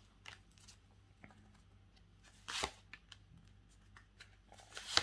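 Tarot cards handled: a card drawn from the deck and laid onto the spread, making faint small ticks and a short papery slide about halfway through.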